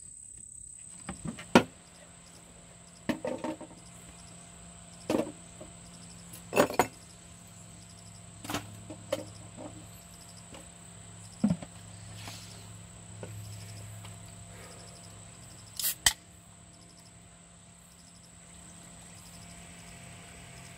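Wooden tabletop panels knocked and clacked into place on a plastic storage crate: a scattered series of sharp knocks, about eight in all, most of them in the first two-thirds. Under them, a steady high insect buzz.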